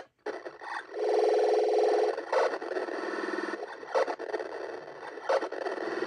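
Circuit-bent Kawasaki toy keyboard making glitchy electronic sounds: a buzzy held tone about a second in, a lower wavering tone after it, and short sharp blips scattered through.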